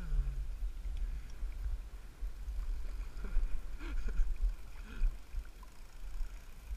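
Wind rumbling on the microphone over choppy lake water sloshing around wading legs, with a couple of brief splashes a few seconds in.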